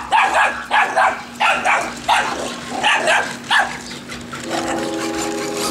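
Dog barking repeatedly, about seven sharp barks in the first four seconds. Near the end the barking stops and a steady whine with several tones begins.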